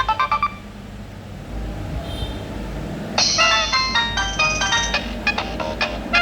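Nokia 7210 ringtones playing through a Nokia 2760 phone's loudspeaker. One tune cuts off about half a second in, and after a short pause another starts about three seconds in as a quick run of high electronic notes.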